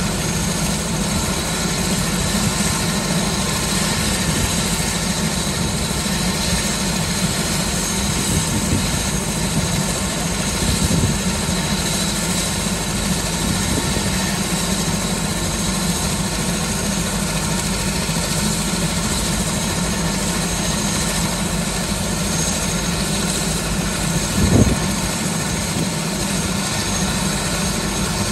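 Light helicopter running on the ground with its main rotor turning: steady engine and rotor noise with a steady high whine, and a short thump near the end.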